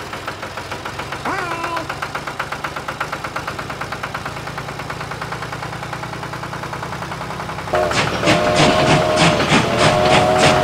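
Small tractor engine running with a steady, rapid chug. About three-quarters of the way in it gets louder as a train comes in, with a sustained horn and a regular clickety-clack of about four beats a second.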